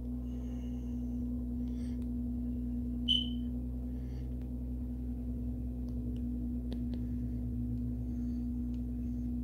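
Steady low electrical-sounding hum with a constant tone, and a brief high chirp about three seconds in.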